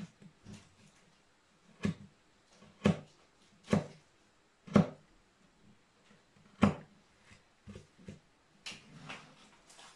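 Hand carving gouge cutting into a wooden relief panel: a string of short, sharp cutting snaps, five louder ones roughly a second apart in the first seven seconds, then fainter, quicker clicks and scrapes.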